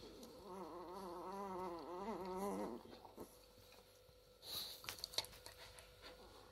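A Lagotto Romagnolo dog giving one long wavering whimper of about two and a half seconds, followed a couple of seconds later by a brief rustle with a few small clicks.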